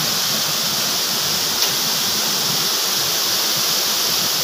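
Waterfall pouring into a rock pool: a steady, even rush of falling water, with one short click about a second and a half in.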